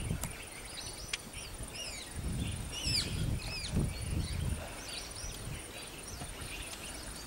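Wild birds chirping, a scatter of short rising and falling calls, over a faint low rumble.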